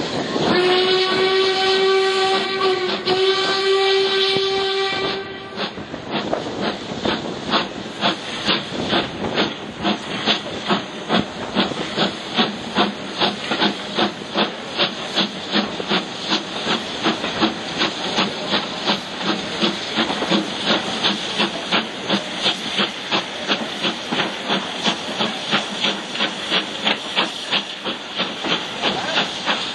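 Stanier Black Five steam locomotive 45110 sounding its whistle, one steady note held for about five seconds. Then the exhaust beats out in a regular rhythm as it pulls the train, heard from an open carriage window.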